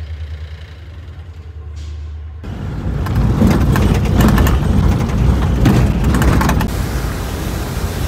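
Jeep engine humming low and steady, then, about two and a half seconds in, a louder, rougher stretch of the jeep driving on a rough dirt track, with many rattling knocks.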